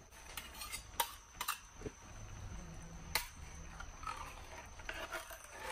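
Faint clicks and light knocks from a metal soup can being handled and tipped upside down over a pan. The sharpest clicks come about a second in and about three seconds in.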